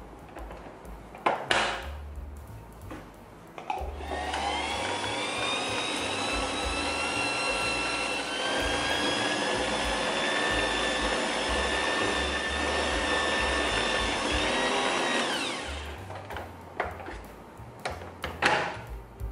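Kenwood stand mixer's motor starting about four seconds in and running steadily with a whine for about eleven seconds, its beater working crunchy peanut butter into cheesecake batter in the steel bowl, then winding down with a falling pitch. A few sharp knocks come before it starts and after it stops.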